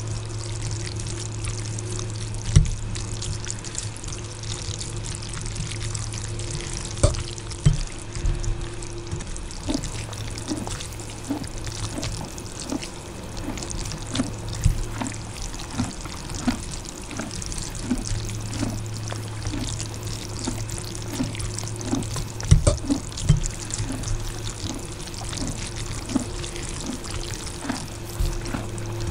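Close-up eating sounds of spicy instant ramen noodles: wet slurping and chewing, with a metal fork clicking and scraping on a ceramic plate, over a steady low hum.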